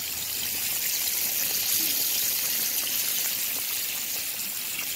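Flour-coated chicken pieces deep-frying in plenty of hot oil: a steady sizzle with fine crackling from the bubbling oil.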